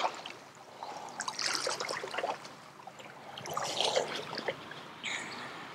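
Lake water lapping and trickling gently at the shore, swelling and fading in irregular surges.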